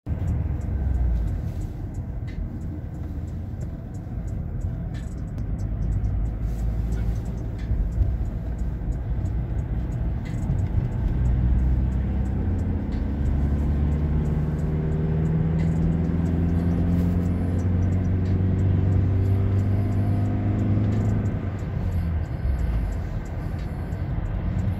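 Car engine and road noise heard from inside the cabin while driving. About halfway through, the engine note rises steadily as the car accelerates, then it drops back to a plain rumble near the end.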